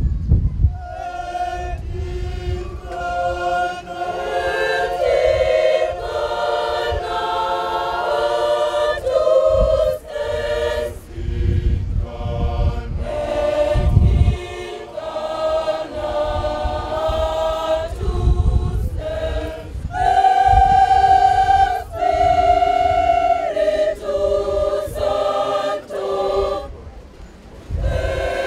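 Women's choir singing unaccompanied in harmony, several voice parts at once, starting about a second in and moving in held phrases with short breaks between them.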